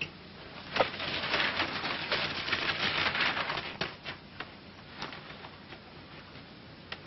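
Paper rustling and crackling as a newspaper is handled and opened, for about three seconds, followed by a few soft isolated clicks.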